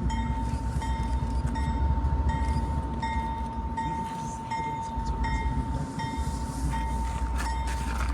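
A train passes with a steady low rumble while a level-crossing bell dings about every 0.7 s.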